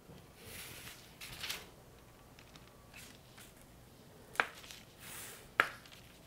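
Quiet swishing and scraping of a spatula smoothing a mound of stiff meringue on parchment paper over a sheet pan, with two short sharp clicks in the second half.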